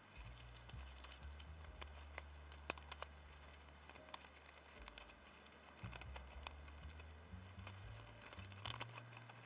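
Faint, scattered clicks and light rustles of fingers handling a clear plastic Christmas ball and pulling at the tatted thread lace around it, over a low steady hum.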